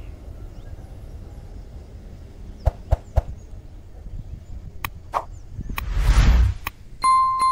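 Subscribe-button animation sound effects: a few sharp mouse-style clicks, a quick whoosh about six seconds in, then a bright bell ding near the end. A faint low rumble runs underneath in the first half.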